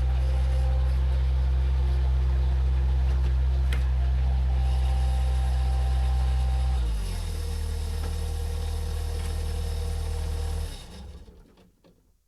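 Engine running steadily with a low hum, throttled back to a lower, quieter speed about seven seconds in, then shut off near the end.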